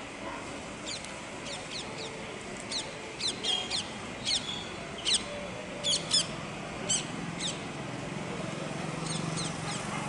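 Yellow-billed babblers giving short, sharp, high chirps, singly and in quick runs of two or three notes. A low steady hum comes in about halfway through.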